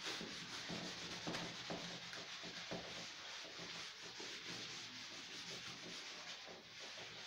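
Chalkboard duster wiping across a blackboard in repeated faint rubbing strokes, clearing chalk writing off the board.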